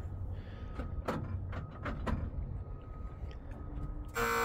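A few metal clanks and knocks, then near the end the military 6x6 truck's horn sounds in one short, loud toot, a sign that the truck has electrical power.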